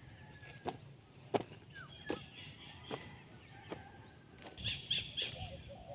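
Footsteps on dry, cleared farm ground, about one step every 0.7 seconds, with faint bird chirps near the end.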